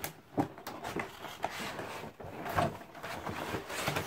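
Cardboard box being opened by hand: rustling and scraping of the cardboard, with a few dull knocks, one about half a second in and another about two and a half seconds in.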